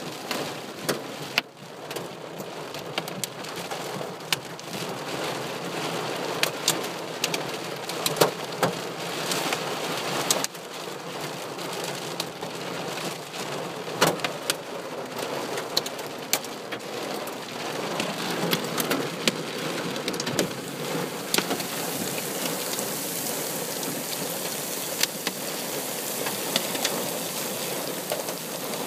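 Hail and heavy rain pelting a pickup truck, heard from inside the cab: a steady hiss of downpour scattered with sharp, irregular clicks of hailstones striking the body and glass. The hiss turns brighter about two-thirds of the way through.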